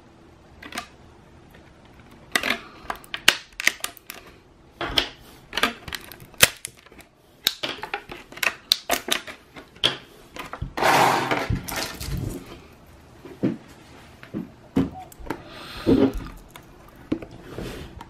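Clear plastic blister packaging being handled: a run of sharp clicks, taps and crinkles, with a longer crinkling rustle a little past halfway and a shorter one near the end.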